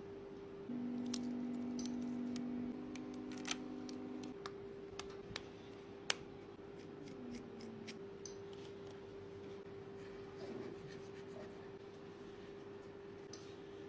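Faint clicks and scrapes of a phone and its housing being handled on a silicone repair mat, over a steady low hum; a louder second hum joins about a second in and stops after about three and a half seconds.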